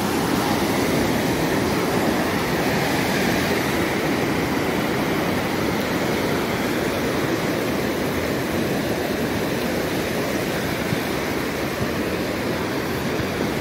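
Surf on a sandy beach: small waves breaking and washing up the shore in a steady rush of water.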